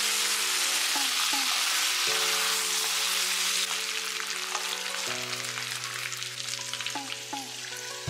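Pork belly and black fungus sizzling in a hot wok while being stirred with a wooden spatula, with light scrapes through the hiss. The sizzle eases a little about halfway through. Soft background music plays underneath.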